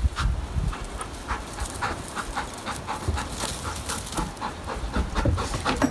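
A black Labrador panting in quick, even breaths, about three a second, after running.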